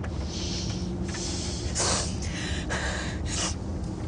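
Several short, irregular noisy breaths or gasps, the loudest about two seconds in, over the steady low rumble of a car's cabin.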